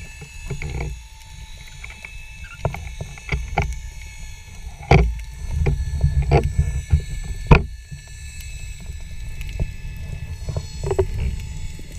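Underwater sound picked up by an action camera in its waterproof housing: a muffled low rumble of water moving past, with scattered sharp clicks and knocks, the loudest about five and seven and a half seconds in.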